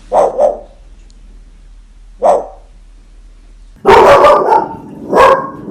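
A parrot imitating a dog's bark on cue: two quick barks, a single bark about two seconds later, then a louder, rapid run of bark-like sounds from near the four-second mark.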